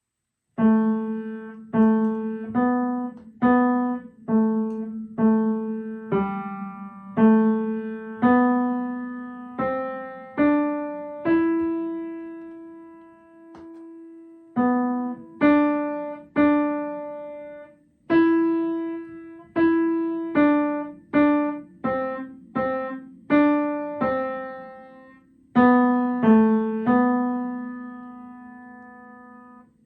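Piano playing a slow melody one note at a time, each note struck and left to die away, with a long held note about halfway through.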